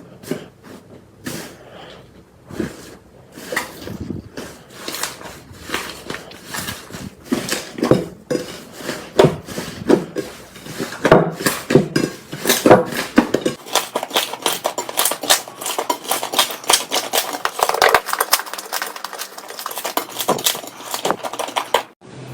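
Slime being squeezed and poked by hand, making a run of sharp clicks and pops. They are spaced out at first and come thick and fast in the second half.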